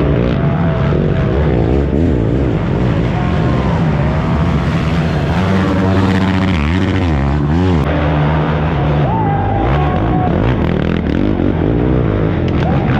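Several racing ATV engines revving hard as the quads race past, with many engine notes overlapping and the pitch climbing and dropping through throttle and gear changes.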